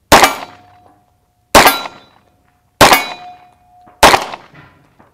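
Four single shots from a Nighthawk Custom Fire Hawk 9mm pistol with an integrated compensator, fired at an even pace about a second and a quarter apart. Each crack is sharp and dies away quickly, leaving a faint, brief ringing tone.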